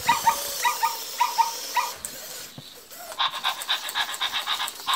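Zoomer robot puppy's speaker playing recorded dog sounds: a quick string of short high yips, then from about three seconds in a rapid, even panting, about six pants a second.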